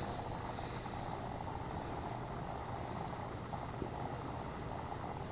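Steady background noise: an even hiss with a faint low hum, no distinct events.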